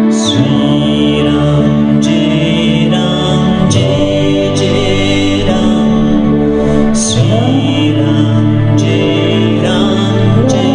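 A woman singing a Hindu mantra song over sustained keyboard chords and acoustic guitar, the chords changing every couple of seconds.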